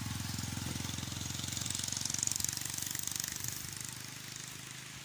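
Single-cylinder motorcycle engine running with a fast, even pulsing beat, the Suzuki Gixxer 155's, with a hiss swelling around the middle.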